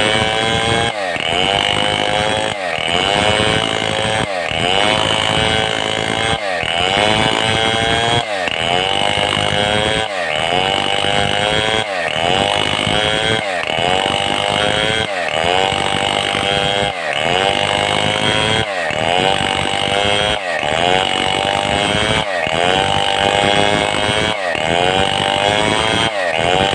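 Stihl 070 two-stroke chainsaw cutting through a mahogany log. The engine note dips and climbs back up about every one and a half seconds as the saw works under load.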